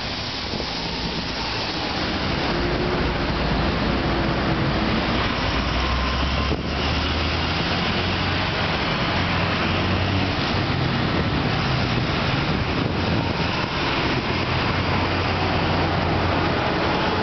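Steady street traffic noise, with the low engine hum of passing vehicles swelling now and then.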